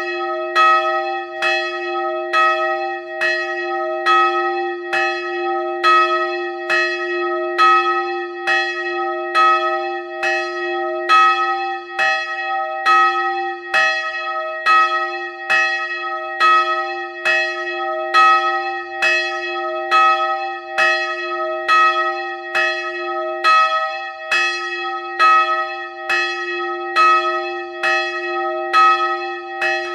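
A single church bell swinging and ringing, hand-rung by rope, its clapper striking about twice a second with every other stroke louder, over a steady sustained hum.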